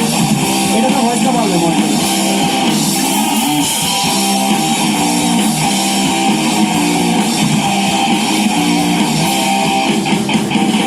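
Live rock band playing through a PA, led by electric guitars.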